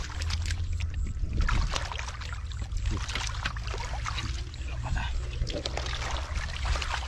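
Hands groping and splashing in shallow muddy water, with many small irregular splashes and trickles, over a steady low rumble.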